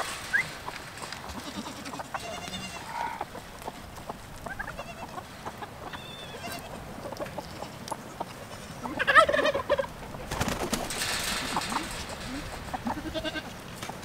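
Chickens clucking and goats bleating, short calls scattered through, the loudest about nine seconds in. A brief rushing noise follows it for a second or two.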